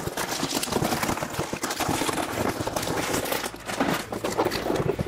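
A tall cardboard shipping box being pulled open and handled: irregular rustling, crackling and scraping of cardboard and plastic wrap.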